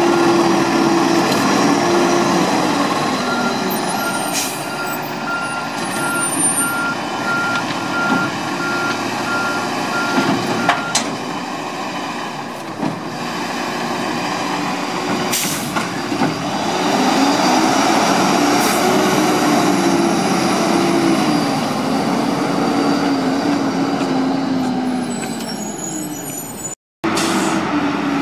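Lodal automated side-loader garbage truck with its backup alarm beeping steadily for the first ten seconds or so, a few short air-brake hisses, then its diesel engine revving up and down.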